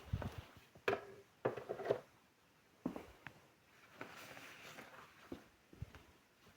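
Small items being picked up and set down while a dressing table is tidied: scattered light knocks and clicks, with a soft rustle about four seconds in.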